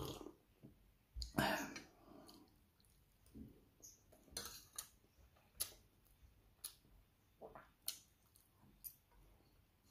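Eating sounds: a metal spoon clicking and scraping against a ceramic plate in short taps about once a second, with quiet chewing between. The loudest sound is a knock about a second and a half in.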